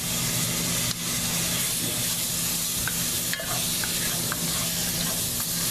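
Chopped celery, onion and garlic sizzling in hot oil in a metal pot, stirred and scraped with a wooden spoon, with a few light ticks. A steady low hum runs underneath.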